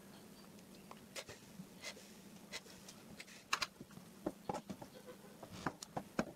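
Irregular small clicks and taps from wires and a homemade component board being handled on a wooden surface, over a faint steady low hum.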